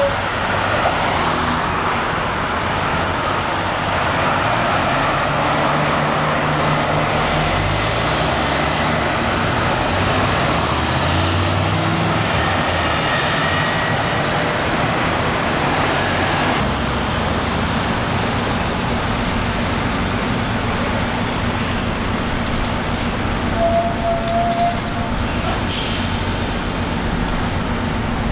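Street traffic with diesel city buses passing. A bus engine revs up and down between about five and thirteen seconds in.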